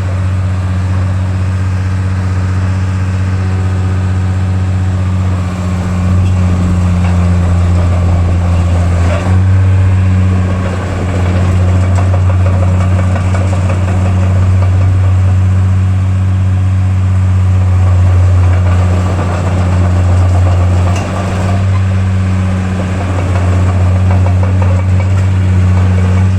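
Caterpillar D3C bulldozer's diesel engine running steadily at a low speed, with its pitch shifting slightly a couple of times.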